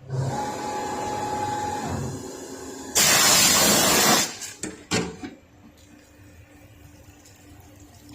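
A workshop machine running with a steady whine for about two seconds, then a loud hiss lasting about a second, a few sharp clicks, and a quiet low hum.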